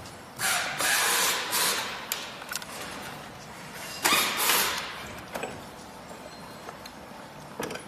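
Hands working wires and plastic plug connectors inside a scooter's plastic battery compartment: rustling and scraping in two spells of about a second each, with a few light clicks between.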